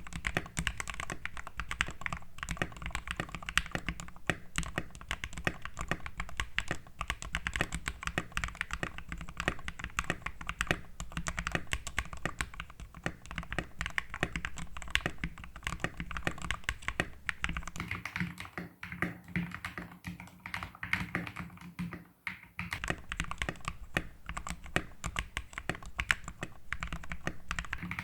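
Fast continuous typing on a Royal Kludge RK71 mechanical keyboard with lubed linear Gateron Red switches, a rapid stream of keystroke clacks. The board is modded with tape and case foam and has lubed, band-aid-modded stabilizers.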